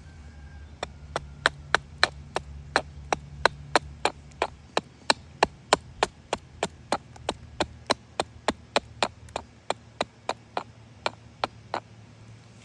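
Hatchet chopping into a cherry-wood spoon blank in quick, even strokes, about three a second, shaving wood and pith off the handle.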